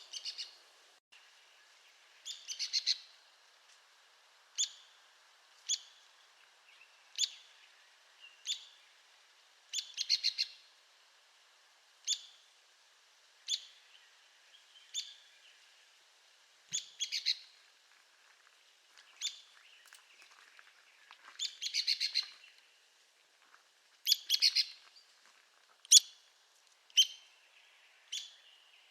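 Arizona woodpecker calling: sharp single call notes every second or two, with several short runs of rapid notes in between.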